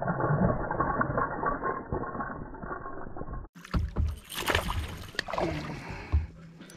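Hooked smallmouth bass thrashing and splashing at the water's surface. About halfway through the sound changes abruptly to clearer water splashing beside a kayak, with a few sharp knocks.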